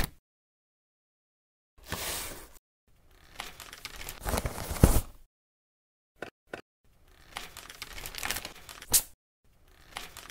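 Cling film and paper crinkling and rustling in several short bursts of handling, with a sharp tap at the very start and two quick clicks a little past the middle.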